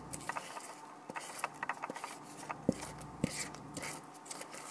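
Silicone spatula scraping sticky chocolate cake mixture out of a mixing bowl into a foil-lined tray: irregular soft scrapes and wet squishes with a few sharper clicks in the middle.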